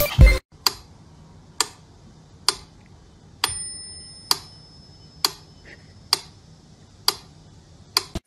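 Sharp ticks, evenly spaced a little more than once a second, with a short high ring about three and a half seconds in.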